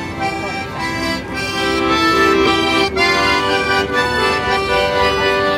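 Music: an instrument playing long held chords with a melody moving over them.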